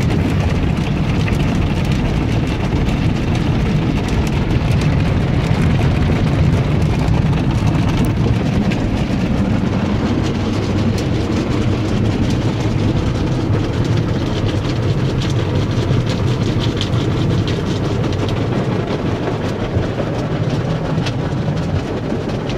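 Automatic soft-cloth tunnel car wash heard from inside the car: a steady, loud rush of water spraying and cloth strips rubbing and slapping across the body and glass, with many small ticks of spray and cloth hitting the windows.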